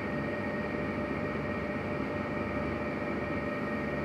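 Steady background hum and hiss with a few faint steady tones, unchanging throughout, with no distinct clicks or knocks.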